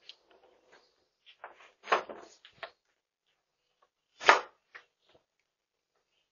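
A door opening with scuffs and knocks, then shutting with one sharp knock about four seconds in, the loudest sound.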